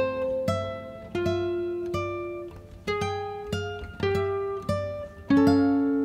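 Background music: a plucked acoustic guitar playing a slow, gentle melody, each note ringing and fading before the next.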